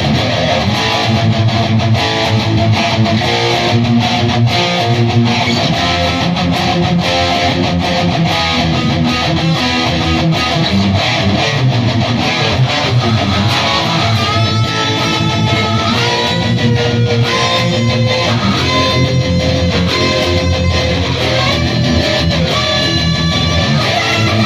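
Electric guitar played through a Bugera 333XL tube amp head on its stock tubes into a Mesa speaker cabinet: continuous riffing, with clearer held single notes coming in about halfway.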